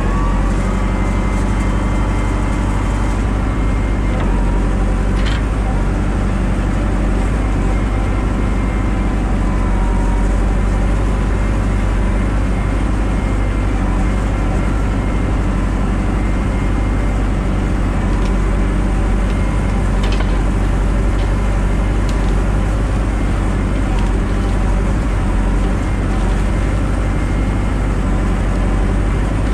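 Tractor engine running steadily while it drives the hydraulics of a self-built forestry crane wagon as the loader boom swings out and the grapple lowers. Two short clicks come through, about five seconds in and again near twenty seconds.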